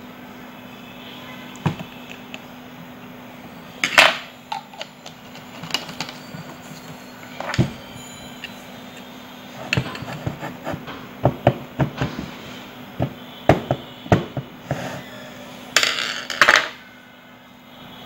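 A small 12-volt lead-acid battery's plastic case being handled and shifted about on a hard table top: scattered knocks and clicks, with two short scraping rubs, one about four seconds in and one near the end.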